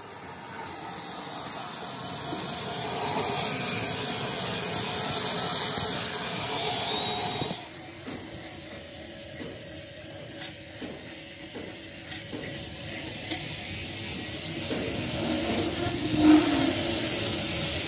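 Handheld power grinder abrading the inside of a rusted steel hydraulic breaker cylinder bore, a steady hissing grind. It drops away a little under halfway through, with only light clicks, and builds back up to a loud grind toward the end.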